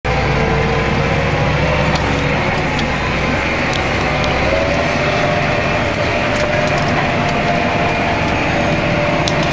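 Steady running of a John Deere tractor and the PTO-driven Artsway 6812 sugar beet harvester it pulls, heard inside the tractor cab. A steady whine runs through it and rises a little in pitch about halfway through, with light rattles.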